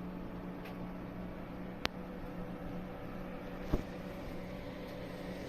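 A steady electrical or motor hum, with two sharp clicks about two seconds apart.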